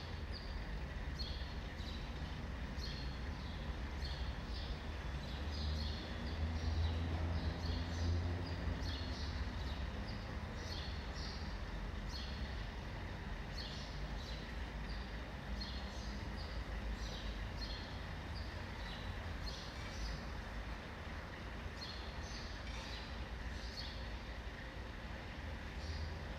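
Small birds chirping in short, repeated calls over a steady low rumble of city traffic. The rumble swells for a few seconds about seven seconds in, as a vehicle passes.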